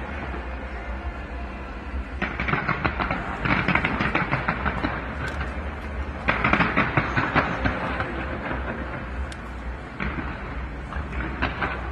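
Fireworks crackling in dense bursts of rapid pops, three waves of them over a steady low rumble.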